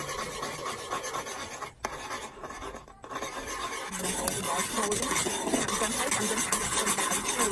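A metal spoon stirring and scraping in an aluminium pot of coconut milk boiling and frothing on a gas burner. It gets louder and hissier about four seconds in.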